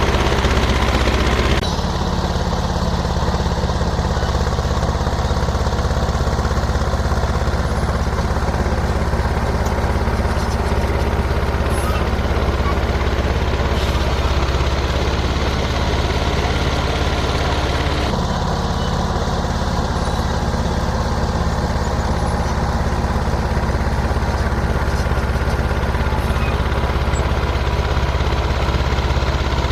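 John Deere 450 crawler dozer's engine running steadily, its tone changing abruptly about two seconds in and again about eighteen seconds in.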